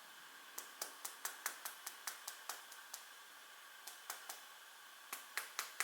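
Fingers knocking on a Huawei P8 Lite smartphone in quick runs of sharp clicks, about five a second, with a pause in the middle. Each knock sets off a rattle from something loose inside the phone, which the owner suspects is the camera lens or an unfastened internal antenna.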